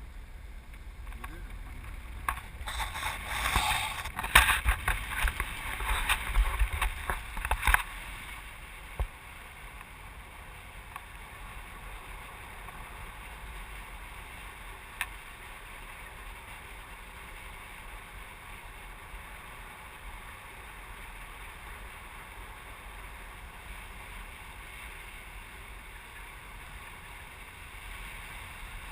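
Wind rushing over the microphone of a tandem paraglider in flight. It buffets hard for several seconds a few seconds in, then settles to a steady, quieter rush of air.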